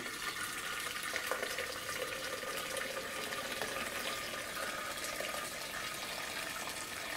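Wort running in a steady stream from the bottom ball valve of a stainless steel mash kettle into a plastic jug as it fills. The wort is drawn off from under the false bottom to be poured back on top, setting the grain filter bed before recirculation.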